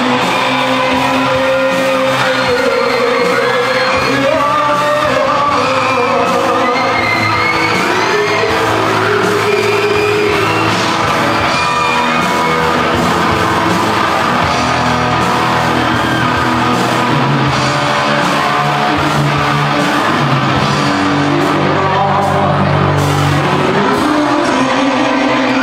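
A live rock band playing: a vocalist singing over electric guitars and drums, steady and loud, with the echo of a large hall.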